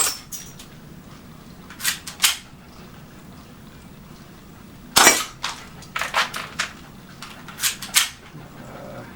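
HFC HA118EBL M9 spring airsoft pistol being shot and re-cocked. About a dozen sharp snaps and clacks come in clusters, the loudest right at the start and about five seconds in.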